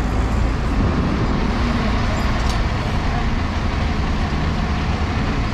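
Fire engine's diesel engine idling at the curb, a steady low rumble, with city street traffic around it.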